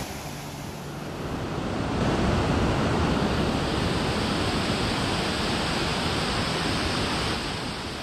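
Triple Falls' cascades rushing over rock ledges: a steady noise of falling water that grows louder about two seconds in.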